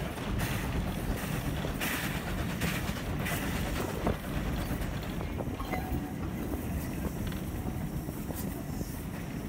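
Steady rumble of a train rolling along the rails, heard from on board a carriage, with a few faint clicks.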